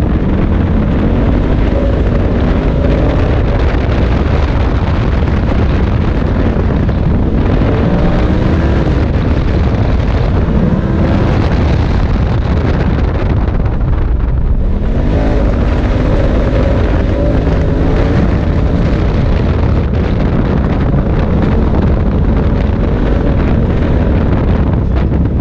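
Polaris RZR side-by-side engine running hard, heard from inside the open cab. Its pitch rises and falls again and again as it accelerates and eases off, dropping about halfway through before climbing again. Wind buffets the microphone throughout.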